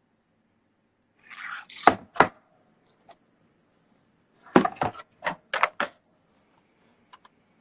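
Sharp knocks and clicks: a brief rustle and two loud knocks about two seconds in, a quick run of about six knocks around five seconds, and two faint clicks near the end.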